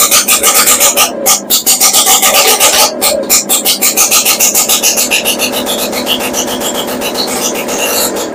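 Freshly rebuilt BSA Bantam B175 two-stroke single-cylinder engine running on its first start after the rebuild: very loud, with a rapid, even rasping beat of exhaust pulses. It eases and grows gradually quieter over the second half.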